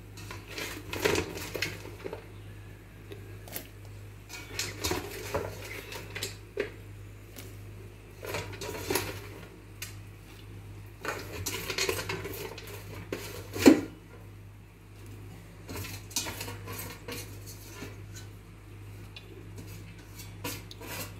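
A metal utensil clinking and scraping against a metal cooking pot at irregular intervals as sliced bitter gourd is added to the boiling broth, with one sharp clank about 14 seconds in.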